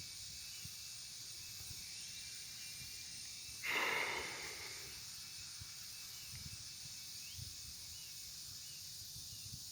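Outdoor ambience: a steady high-pitched insect hiss, with a short rush of noise a little under four seconds in and a few faint chirps later on. No siren is sounding yet.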